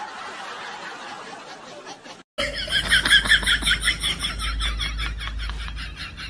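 Soft laughing and snickering, then the sound cuts out for a moment about two seconds in. After the cut comes a louder, fast, high-pitched laugh of rapid pulses.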